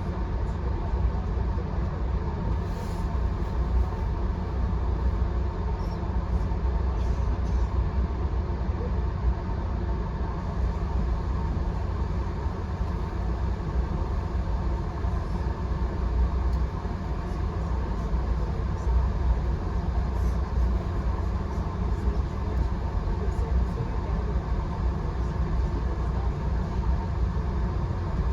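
VIA Rail passenger train running along the track: a steady low rumble of wheels on rails, with a faint steady tone and a few light ticks.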